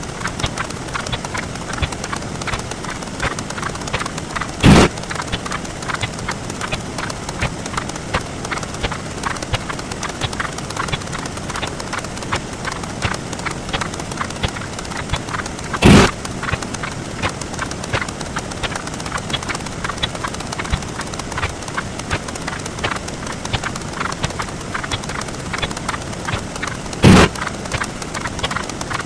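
Counting sound effects sped up 64 times, heard as a rapid, even stream of short clicks. Three times, about eleven seconds apart, a loud short burst breaks in.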